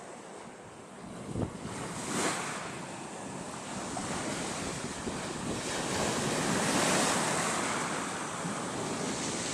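Sea surf breaking and washing ashore, the noise swelling to its loudest about seven seconds in, with wind buffeting the microphone.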